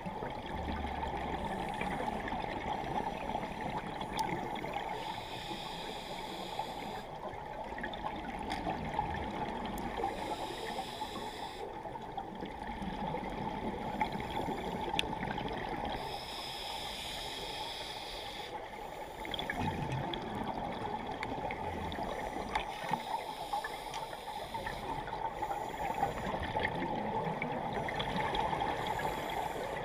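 Underwater sound on a scuba dive: a steady wash of water noise, with hissy bubbling that swells and fades every few seconds as scuba divers breathe out through their regulators. Faint scattered clicks run through it.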